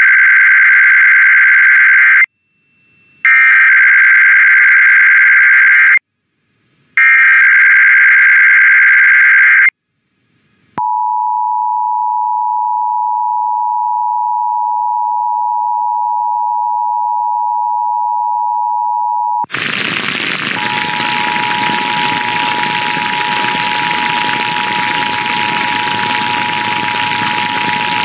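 Emergency Alert System SAME header: three loud buzzy data bursts about a second apart, followed by the steady two-tone attention signal (853 and 960 Hz) for about nine seconds. Just past the middle a loud hiss of static comes in, and the two-tone attention signal starts again beneath it about a second later.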